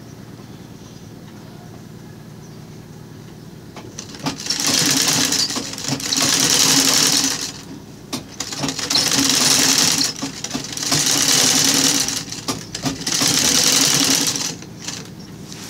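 Old black domestic sewing machine stitching ruffled fabric strips onto burlap, running in five bursts of about a second and a half each with short pauses between them, starting a few seconds in.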